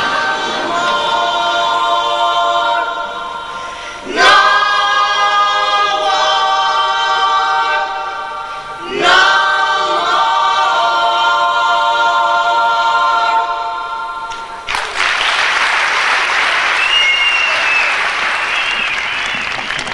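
A choir singing held chords in three long phrases. About fifteen seconds in, the singing cuts off suddenly and a steady rushing noise takes over.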